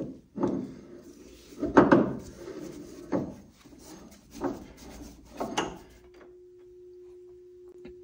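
Cast iron lathe back plate being spun by hand onto the lathe's threaded spindle: a run of about five metallic clunks and scrapes as it turns and seats. About six seconds in these stop and a single steady hum takes over.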